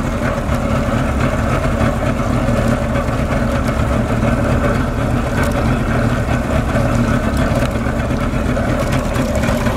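Mercury 75 outboard motor running steadily as the boat cruises, with water rushing along the hull.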